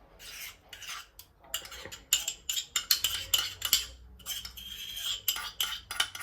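Kitchen utensil clinking and scraping against a dish or bowl: a quick, uneven run of clinks and scrapes while salad ingredients are handled.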